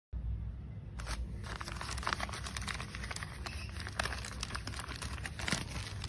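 Black plastic courier bag crinkling and crackling in a dense run of short crackles as it is handled, over a steady low hum.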